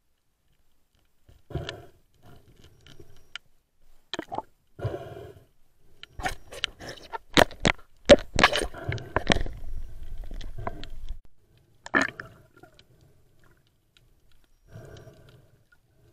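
Muffled underwater knocks, clicks and scrapes close to the microphone: handling noise on an underwater camera while an octopus is gripped against it. The sharp clicks come thickest in the middle, then die down near the end.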